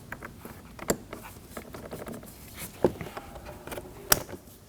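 Plastic electrical connectors being pushed home on the back of a car door panel, with three sharp clicks as they latch, amid light rustling of the panel being handled.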